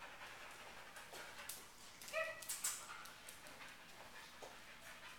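A dog whimpers once, a short high whine about two seconds in, with a few sharp clicks around it.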